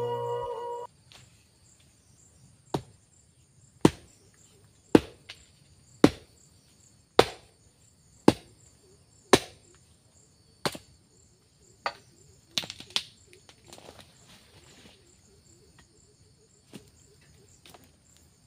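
A long-handled digging tool striking earth and roots at the base of a stump, about once a second, roughly eleven sharp strikes, then a few lighter knocks. Crickets trill steadily behind it.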